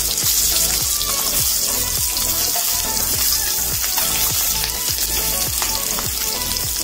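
Hot oil sizzling and crackling in an iron kadhai as masala-coated boiled eggs are added and begin to fry. There are frequent small pops throughout.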